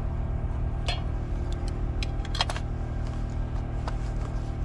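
Steady low hum of an engine running, with a few light clicks and clatters from a frying pan on a camping spirit stove and a plastic food tub being handled.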